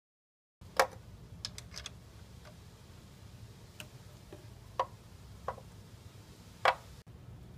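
Ratchet and socket clicking on the thermostat housing's 5/16" bolts: about ten irregular sharp clicks as the socket is fitted and the ratchet worked, the loudest about a second in and near the end, over a faint low hum.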